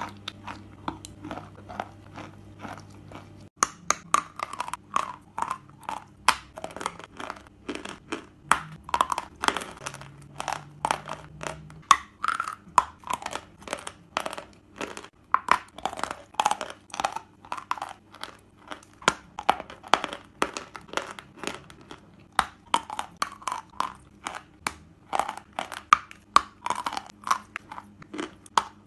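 Person chewing and crunching chalk close to the microphone: quieter crunches at first, then from about three seconds in a dense run of sharp, loud crunches, two to three a second.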